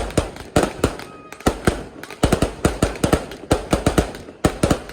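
Fireworks going off: a rapid, uneven series of sharp bangs, about three or four a second, with a brief lull about a second in.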